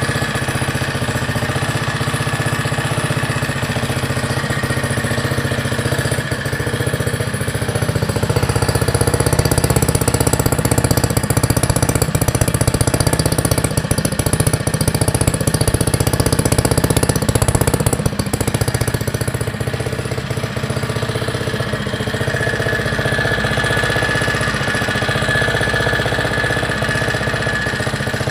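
79cc single-cylinder four-stroke mini bike engine with a stage 1 kit (pod air filter and aftermarket exhaust) running steadily, a little louder for about ten seconds in the middle.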